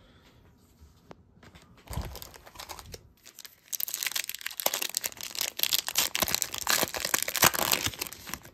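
Plastic wrapper of an O-Pee-Chee hockey card pack crinkling and tearing as it is ripped open, a dense crackle from about four seconds in until near the end. A light knock comes about two seconds in.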